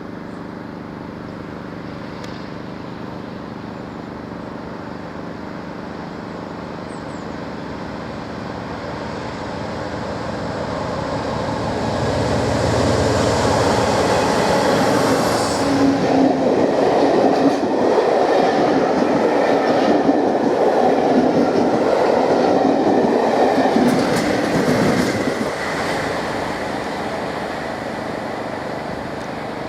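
Class 47 diesel-electric locomotive 47614's Sulzer twelve-cylinder engine working under power as it approaches and passes with a train of coaches. The engine drone grows steadily, is loudest through the middle with the rumble and clicks of the train's wheels, then fades away near the end.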